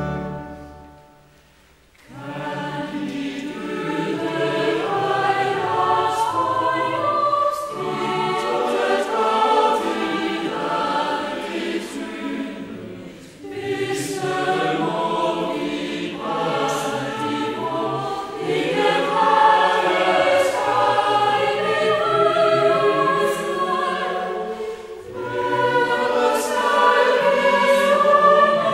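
Choir singing. A held chord fades out at the start, and a new sung passage begins about two seconds in, with short breaks between phrases.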